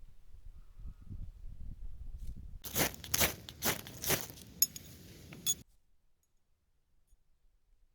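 Low bumps and handling sounds, then a run of about six loud, sharp crunches over roughly three seconds. The sound cuts off abruptly after that.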